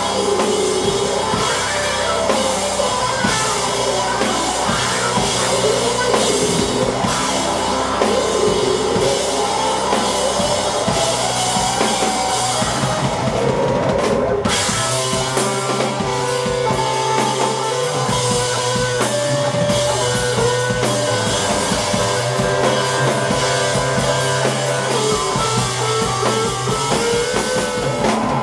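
Live rock band playing an instrumental passage: a full drum kit under a steady bass line and sustained melodic lines. The cymbals drop out for an instant about halfway through.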